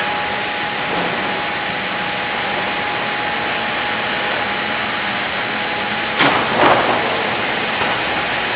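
Sawmill line machinery running with a steady drone and a faint whine, from the electric drive of a MEBOR VC 900 double-arbor multi rip saw. Two louder clatters come about six seconds in.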